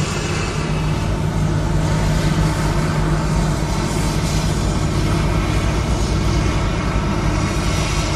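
Steady, unbroken mechanical hum of running machinery: a low engine-like drone over a continuous rushing noise.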